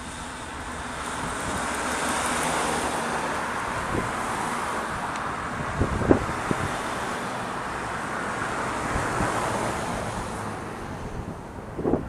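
Road traffic going by: tyre and engine noise from cars swelling and easing off. There are a few wind knocks on the microphone around the middle and a stronger gust of wind noise at the very end.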